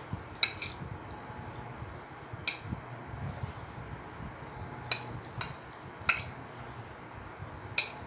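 Red plastic chopsticks clinking against a ceramic plate while stirring and mixing sauced noodles. Several sharp clinks come every second or two over a low steady hum.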